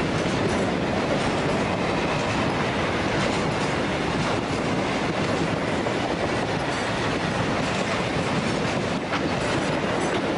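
Container flat wagons of a broad-gauge freight steel train rolling past: a steady rumble of steel wheels on the rails with irregular clacks.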